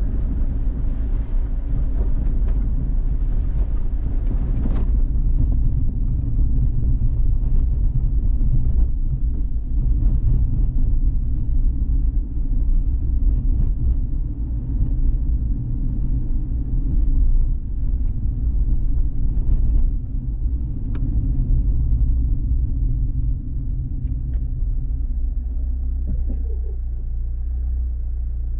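Steady low rumble of a car driving: engine and tyre noise on city streets, easing slightly near the end.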